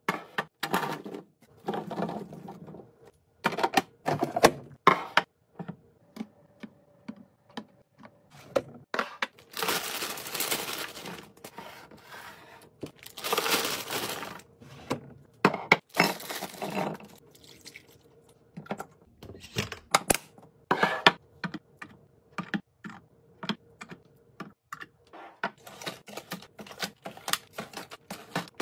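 Fridge restocking: a quick run of clicks, taps and knocks as containers and bottles are handled and set down, with a few longer rustling stretches of packaging.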